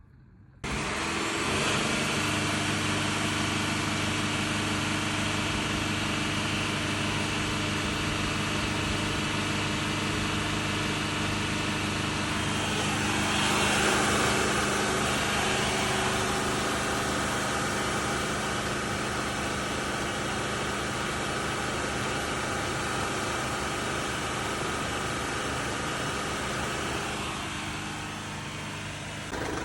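Mercedes Sprinter van's diesel engine running at a steady idle, starting suddenly about half a second in, swelling louder for a moment around the middle, during a DPF chemical flush clean.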